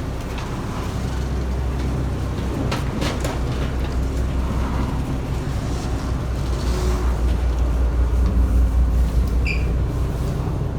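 Boat engine running steadily with a low drone, growing a little louder near the end, with a few light knocks about three seconds in.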